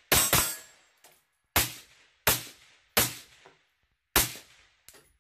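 Six suppressed 5.56 shots from a CZ BREN 2 Ms pistol fitted with a CZ 556Ti titanium suppressor, fired one at a time. The first two come in quick succession, then the rest follow about a second or less apart, each with a short ringing tail.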